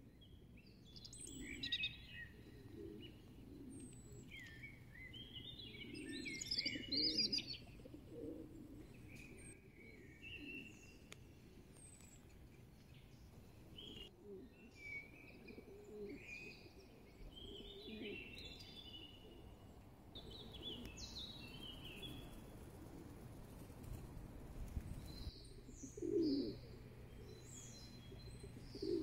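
Several songbirds chirping and singing in short phrases, with pigeons cooing low now and then, loudest about seven seconds in and near the end.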